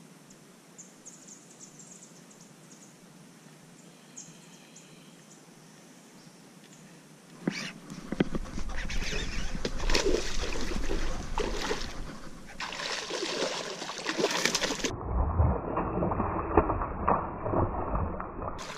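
Quiet with a few faint bird chirps, then, about seven seconds in, a sudden burst of noise as a fish is hooked on a baitcasting rod: rod and reel handling and reeling, with the hooked fish splashing at the surface near the end.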